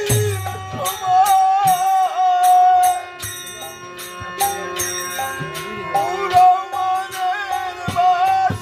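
Instrumental passage of a Bengali devotional kirtan: a held, wavering melody over jingling percussion keeping a steady beat, with low drum strokes about a second in and near the end.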